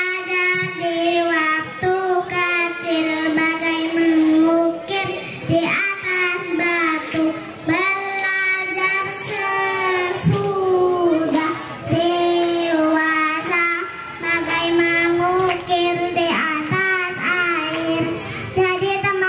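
A young boy singing into a microphone, amplified, in long held notes that bend and waver, phrase after phrase with short breaks between them.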